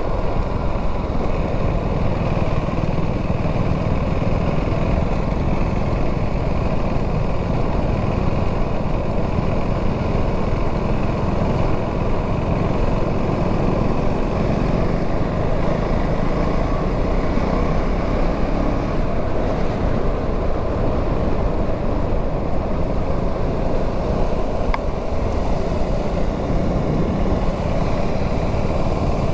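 KTM Duke 390's single-cylinder engine running steadily while the bike is ridden, mixed with a rush of wind noise on the microphone.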